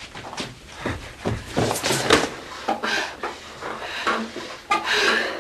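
A scuffle in a small room: a run of knocks, bumps and footsteps as a person is pulled through a doorway, with a louder cluster of knocks near the end.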